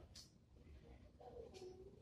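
Near silence: room tone with a few faint, brief distant noises and a faint falling tone near the end.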